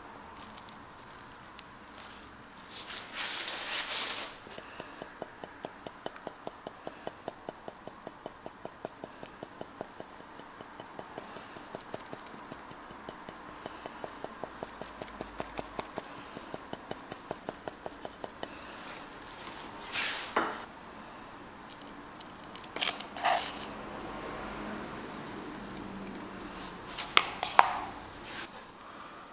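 A sieve tapped over and over, about four small ticks a second, dusting powder over a cream-topped croffle. It starts after a brief scraping rustle, and a few sharp clinks of a plate or utensil come near the end.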